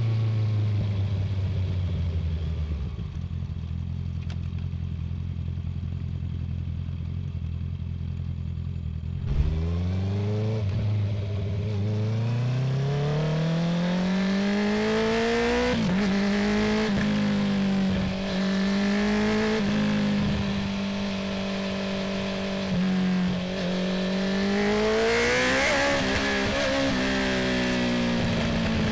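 Honda CB650R inline-four with an Akrapovic full titanium exhaust, running steadily at low revs, then opened up about nine seconds in: the engine note climbs for several seconds and holds at high revs, with a few brief dips.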